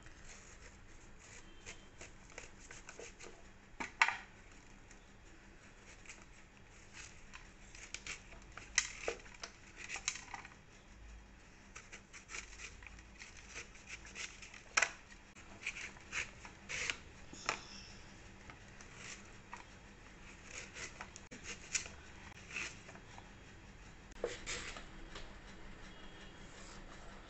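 Skin being scraped off an elephant foot yam with a small metal hand scraper: irregular short scraping strokes, a few of them louder.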